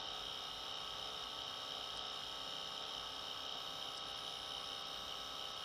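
Steady electrical hum and hiss, unchanging throughout, with a higher hissing band over it.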